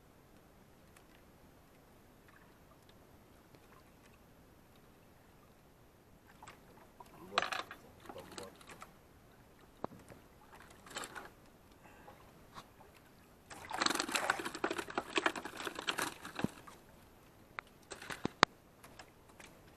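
Water splashing and trickling in irregular bursts as a wet nylon gill net is handled over the side of a small outrigger boat, with a few sharp clicks. The sound starts after about six seconds, and the busiest, loudest stretch comes about two-thirds of the way through.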